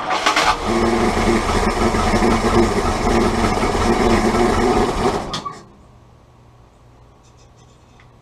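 Willys L134 Go Devil four-cylinder flathead engine running on starter fluid, then dying about five and a half seconds in.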